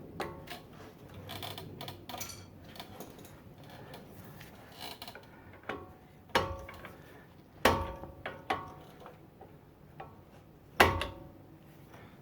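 Metal tools working on a brake caliper's retaining pin: a hammer striking a punch, four sharp ringing metallic hits in the second half, with lighter clicks and scraping of metal between them.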